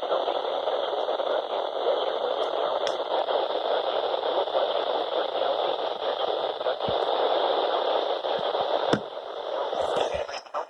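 Weather radio receiver static: a steady band of hiss with no voice or tones. The hiss drops a little near the end, with a few sharp clicks.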